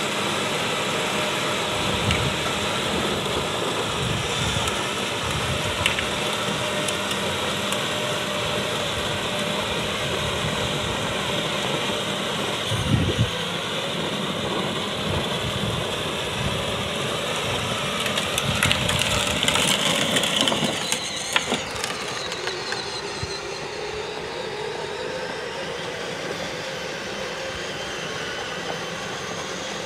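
Battery-powered Power Wheels ride-on truck driving, a steady mechanical hum from its electric drive motors and gearboxes with its plastic wheels rolling on the road; louder for a few seconds about two-thirds of the way through, then quieter.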